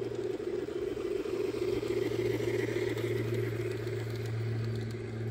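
G gauge garden-railway model steam locomotive and coaches running past on the track: a steady hum with a rattle of wheels on rail, a little louder as the train passes closest about two seconds in.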